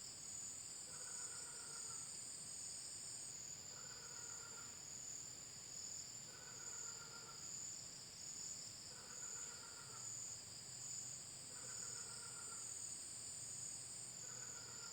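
An unidentified animal calling, likened to a frog but very loud: a short, slightly falling pitched call repeated six times, about every two and a half seconds. A steady high drone of crickets or other insects runs underneath.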